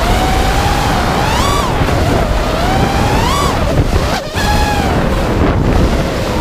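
FPV quadcopter's brushless motors whining, the pitch rising and falling with the throttle, over heavy wind rush on the onboard camera's microphone. The whine drops out briefly about four seconds in, as the quad flips upside-down, then comes back.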